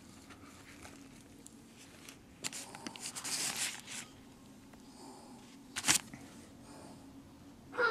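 Paper fast-food wrapper rustling and crinkling as a wrap is handled, then a single sharp click. Right at the end comes a short high-pitched whimper from a dog.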